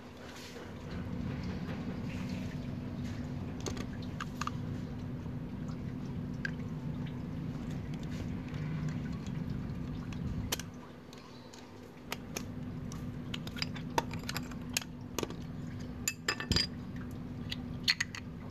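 Small metal clicks and clinks as the pin and worn pads are worked out of a Yamaha Aerox 155's rear brake caliper with pliers. The clicks come in a scattered run over the last six seconds, thickest near the end, over a steady low background hum that drops away about ten seconds in.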